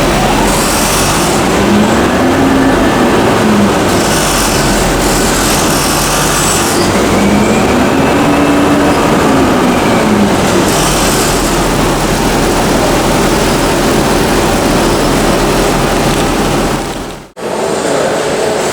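Loud, steady noise of a subway train in motion, with a tone that rises and falls twice as it speeds up and slows. The sound cuts off abruptly near the end.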